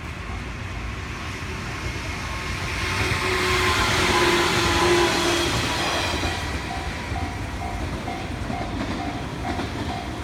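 An electric multiple-unit train passes through a level crossing. Its running noise swells to a peak about four to five seconds in, with a tone that falls in pitch as it goes by, then eases off. The crossing's warning bell rings about twice a second throughout, heard plainly again once the train has passed.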